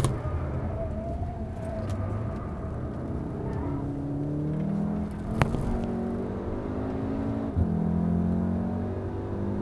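Volkswagen Golf R's turbocharged 2.0-litre four-cylinder engine on track, running low in the revs through a slow corner. About halfway through it accelerates hard with rising revs. The DSG dual-clutch gearbox then snaps through two quick upshifts, each a sudden drop in pitch.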